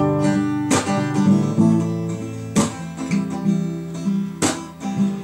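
Acoustic guitar strumming chords, a strong strum about every two seconds with the chords ringing on between them.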